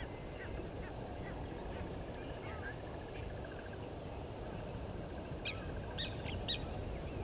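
Wild birds calling: a fast trill through the middle, then a few louder, harsh calls about five and a half to six and a half seconds in, over a steady low background noise.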